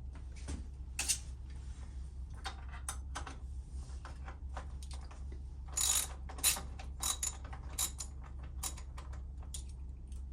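Hand ratchet wrench clicking in short, irregular strokes while a nut is run down, with quicker runs of clicks in the second half, over a steady low hum.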